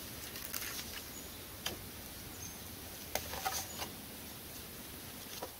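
Scattered light knocks, crackles and crunches as a wooden pole is handled and leaned against a fallen ridge log of a lean-to, with footsteps in snow, over a steady faint hiss.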